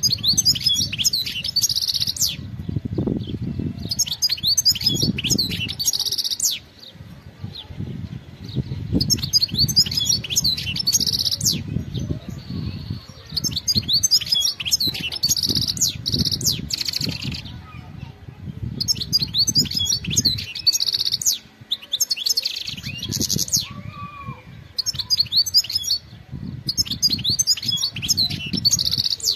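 European goldfinch singing: phrases of rapid, liquid twittering notes, each lasting a few seconds with short pauses between, over a low rumble.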